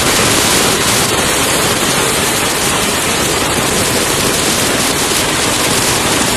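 Loud, steady roar of torrential rain and fast-rushing floodwater surging through a street.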